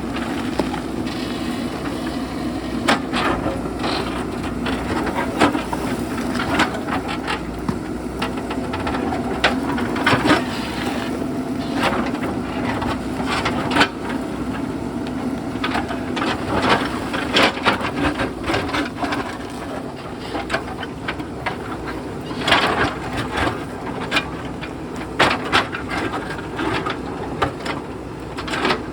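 JCB backhoe loader's diesel engine running steadily under load while its bucket digs among rocks, with frequent knocks and clatters of stone against the steel bucket.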